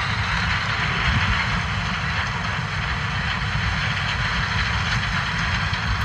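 John Deere S670 combine running steadily while harvesting corn: a constant drone from the engine and threshing machinery over a low, uneven rumble.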